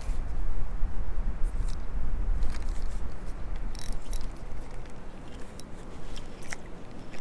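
Low rumble of wind buffeting the microphone, with scattered small clicks and ticks from a spinning reel and rod being handled while casting and retrieving.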